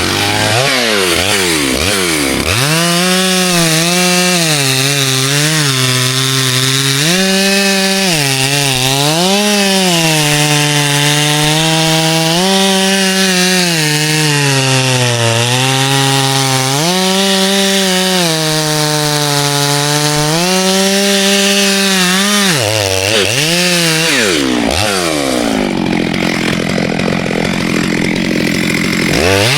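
Two-stroke chainsaw cutting into ash wood at high revs. The engine pitch keeps dropping as the chain loads up in the cut and rising again as it frees, and it sags lower for a few seconds near the end.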